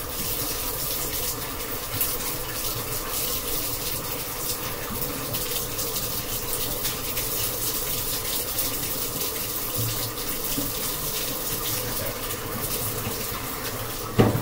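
Hot water running from a tap into the clean-water tank of a Bissell DeepClean Premier carpet cleaner, a steady rushing fill. A single sharp knock comes near the end.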